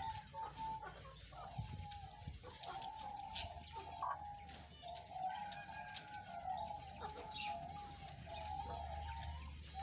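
Chickens calling in a poultry pen: a steady, wavering call with faint rapid chirps above it, and one sharp click about three and a half seconds in.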